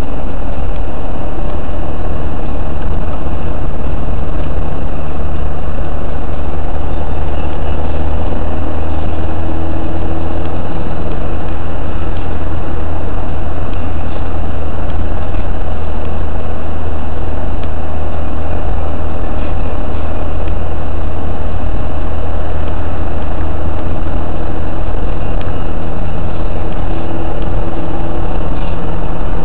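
Car driving at highway speed, heard from inside the cabin: a steady low drone of engine and road noise.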